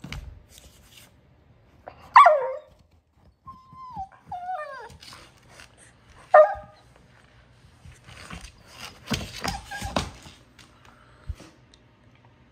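A dog whining and giving two short, sharp yips, about two and six seconds in, in frustration at a ball stuck out of reach under a couch. A burst of scuffling and sniffing noise follows about nine seconds in.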